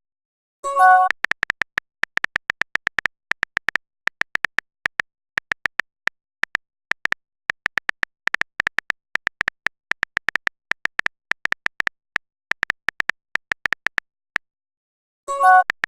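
Phone keyboard clicks typing out a message: rapid, irregular short ticks with a high beep in each. A short message-alert chime sounds about a second in and again near the end.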